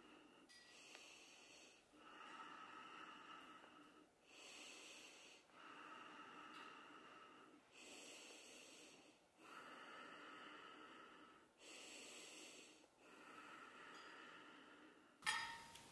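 A person breathing slowly and heavily, long drawn breaths in and out, about four full breaths, faint. Near the end comes a sudden sharp sound, louder than the breathing.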